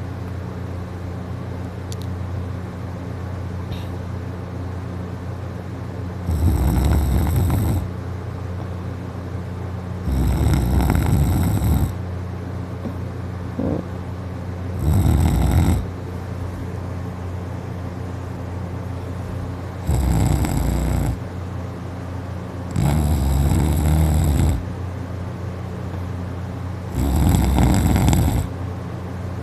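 A sleeping person snoring real loud: six snores, each about a second or so long and four to five seconds apart, over a steady low hum.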